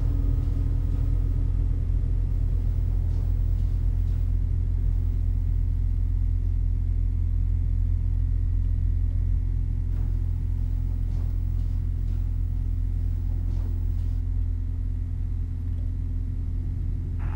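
A steady low rumbling drone with a faint hum over it, and a few faint clicks scattered through it.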